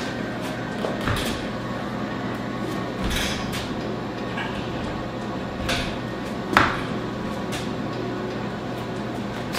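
About four knocks and clunks as the steel bowl of a Weber Summit charcoal grill is handled and fitted onto its metal frame. The loudest comes about two-thirds of the way through, with a short ring. A steady low hum runs underneath.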